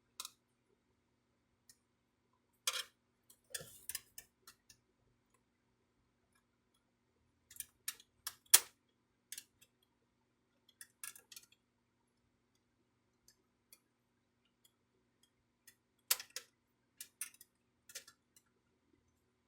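Irregular plastic clicks and taps from a Brother inkjet printer's parts being handled and unclipped by hand, coming in short clusters with pauses between, the sharpest about eight and a half seconds in.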